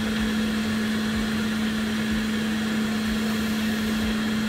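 Steady electrical hum of running repair-bench equipment, holding one low pitch over a fan-like hiss, with a faint low thump about once a second.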